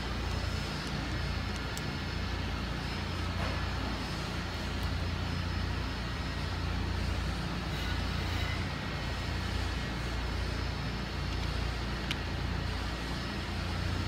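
Steady low background rumble of machinery, even throughout, with a couple of faint clicks.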